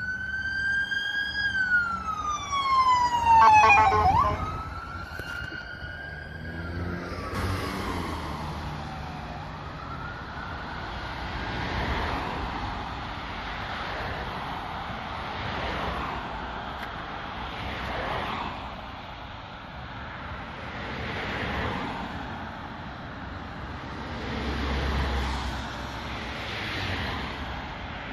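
Ambulance siren wailing, its pitch rising and falling, loudest about three to four seconds in as it passes, followed by a few low horn honks. The siren then fades away, leaving the sound of passing traffic that swells and fades.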